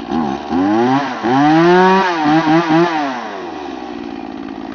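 Stihl MiniBoss two-stroke chainsaw revved off idle: two short revs, one held high for most of a second, then three quick blips before the engine drops back to idle.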